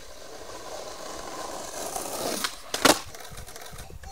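Skateboard wheels rolling on asphalt, growing louder as the skater approaches. A little under three seconds in come sharp clacks of the board, the last one the loudest, as the trick fails and the skater bails.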